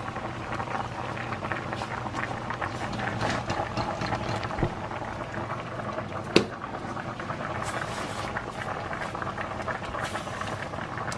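Stockpot of blue crabs at a rolling boil, bubbling and crackling steadily, with one sharp click about six seconds in.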